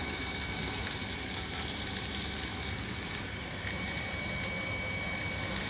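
Onions frying in oil in a small pot over a wood fire: a steady sizzling hiss.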